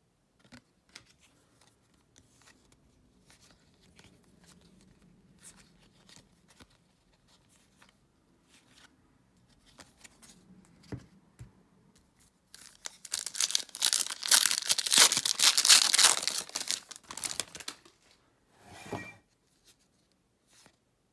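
Trading cards being flipped and slid through the hands with faint ticks and rustles, then, a little past halfway, about five seconds of loud tearing and crinkling as the wrapper of a Topps baseball card pack is ripped open, followed by a short crinkle near the end.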